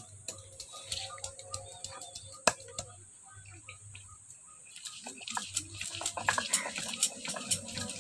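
Stone pestle knocking and grinding on a flat stone grinding slab (sil-batta): scattered sharp stone-on-stone knocks, then busier clacking and scraping from about five seconds in.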